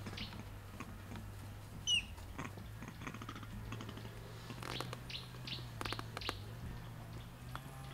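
Outdoor ambience with a low steady hum, a single short high chirp that drops slightly in pitch about two seconds in, and a run of sharp clicks around the middle.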